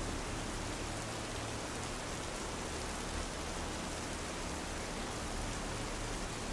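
Steady rainfall: an even, unbroken hiss of rain with a low rumble beneath it.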